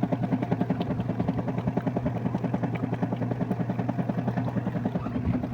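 Washing machine running a wash cycle: a steady low motor hum with a fast, even pulsing, several beats a second.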